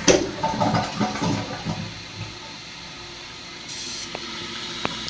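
2012 Kohler Wellworth toilet flushing with its tank open. A sharp clunk comes as it starts, then about two seconds of water rushing out, then a steady hiss as the fill valve refills the tank quickly.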